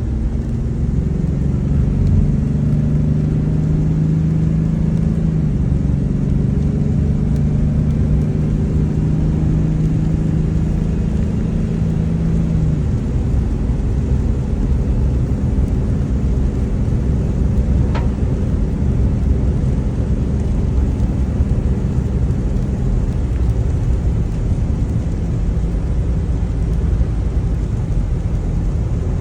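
A car being driven, with a steady low rumble of engine and road noise; a steady engine hum sits over it and fades out about thirteen seconds in.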